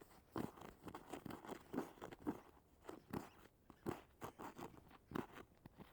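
Footsteps crunching in snow: an irregular run of short crunches, about two a second.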